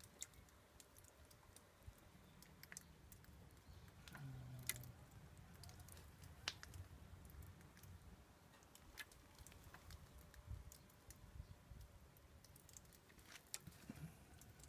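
Near silence with faint, scattered drips of water ticking irregularly on leaves and pots, over a low rumble.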